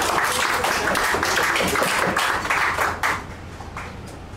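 Audience applauding, many hands clapping at once; the applause stops fairly suddenly about three seconds in.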